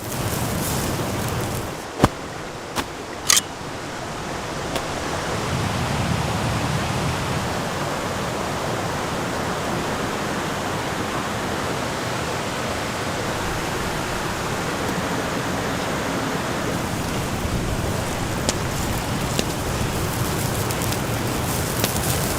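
Wood campfire burning with a steady rushing hiss, and a few sharp crackling pops about two to three seconds in.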